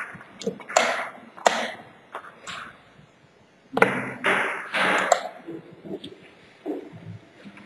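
Wooden chess pieces clacking down on the board and chess clock buttons being pressed after each move. There are a few sharp clicks about a second in, and another cluster about four to five seconds in.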